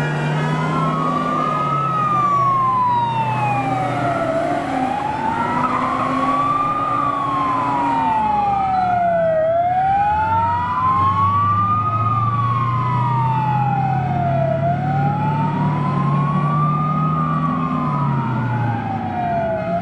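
Several emergency sirens sounding together from a convoy of airport crash tenders and an ambulance. The loudest is a slow wail rising and falling about every five seconds, with faster sweeps from the other sirens. Under them runs the low drone of heavy truck engines, its pitch shifting a few times as the vehicles pull away.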